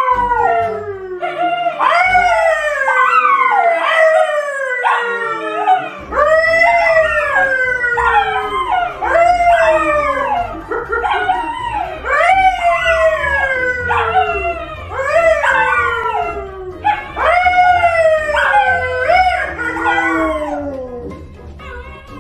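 A dog howling over and over, about one call a second, each call sliding down in pitch; the calls stop near the end.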